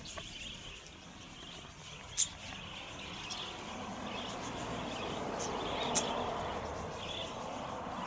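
Wild budgerigars chirping: scattered short, high calls, the sharpest about two seconds and six seconds in, over a hiss that grows louder in the second half.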